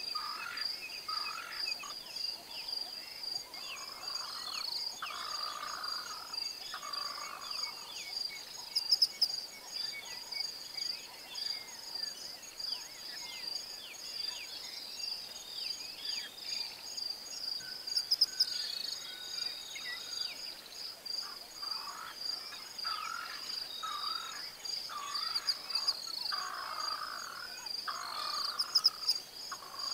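Bushveld ambience: a steady, pulsing, high-pitched insect chorus, with bird calls coming in short clusters on and off and a few brief, sharp high calls standing out about 9, 18 and 29 seconds in.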